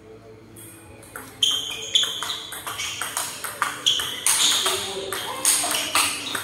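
Table tennis ball being struck back and forth, clicking off bats and table about three times a second, each hit with a short ringing ping. The hits start about a second and a half in.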